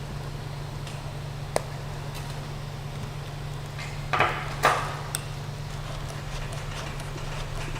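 Creality CR-6 SE 3D printer humming steadily with its fans running while the nozzle heats, with a single click early on and a short burst of clicks and rattling about four seconds in as the printer is handled for filament loading.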